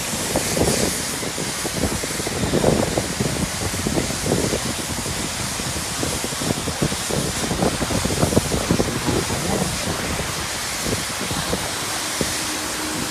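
Steady hiss of a self-service car wash's high-pressure spray wand jetting onto a car's bodywork, with irregular spatter.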